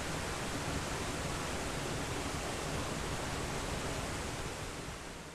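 Small waterfall's water rushing steadily, fading out near the end.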